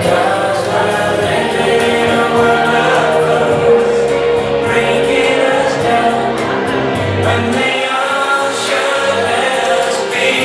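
Background music: a song with several voices singing together, choir-like, with a long held note in the middle.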